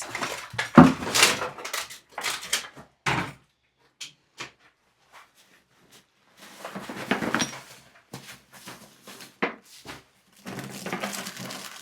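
Clattering and scraping of old coal buckets being handled and moved, in three bursts of knocks and rattles.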